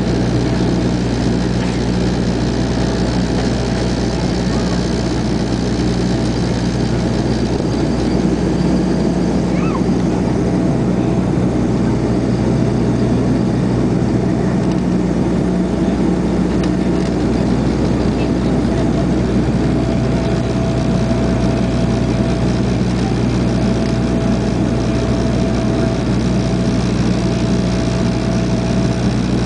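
Cabin drone of a Bombardier Dash 8 Q300's two Pratt & Whitney PW123 turboprop engines and propellers in flight, heard from inside the cabin. It is a loud, steady low hum with a thin higher tone above it that comes and goes in the second half.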